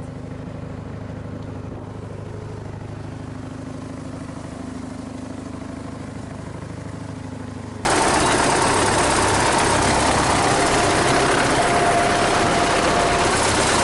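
A boat engine running steadily with a low hum. About eight seconds in, the sound jumps suddenly to a much louder, even rushing noise with a faint steady whine through it.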